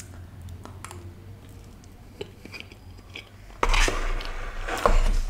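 Quiet chewing and mouth sounds from eating a spoonful of red velvet cake. About three and a half seconds in come two louder scraping, rustling bursts as the styrofoam takeaway box is handled and tipped.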